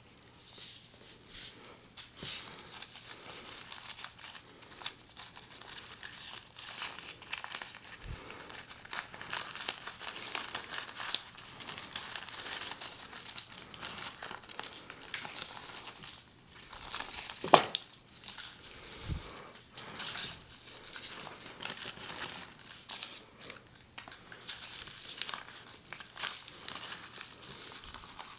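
Plastic wrapping crinkling and tearing as a Kinder Surprise toy is unwrapped by hand, with many small rustles and crackles and one sharp click about 17 seconds in.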